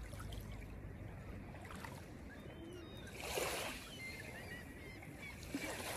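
Faint surf washing on a beach, with a soft swell of surging water about three seconds in and a few faint high chirps over it.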